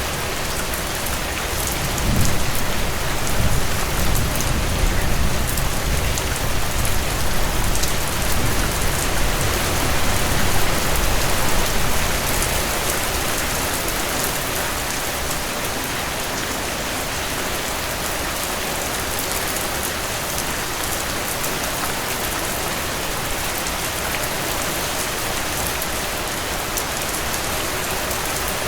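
Heavy rain falling steadily, a dense even hiss of drops. For about ten seconds, starting a couple of seconds in, a deeper low rumble swells underneath it and then fades.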